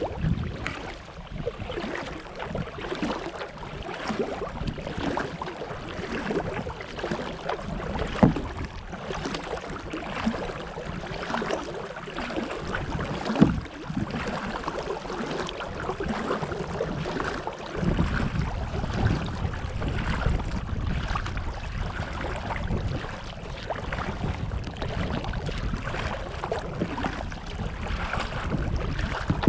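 Kayak paddle strokes in calm water, with splashing and dripping, and two sharp knocks, about eight and thirteen seconds in. From about eighteen seconds on, wind rumbles on the microphone.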